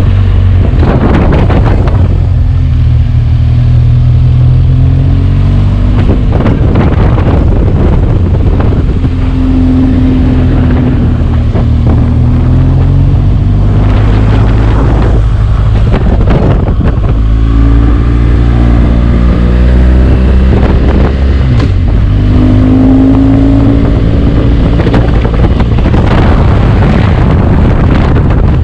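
BMW R1200GS boxer-twin engine through its stock exhaust while riding, its pitch rising and falling with the throttle and gear changes, with repeated wind buffeting on the microphone.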